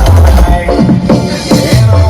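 Electronic dance music played loud through a large carnival sound system ('sound horeg') during a sound check, with a heavy, stepping bass line.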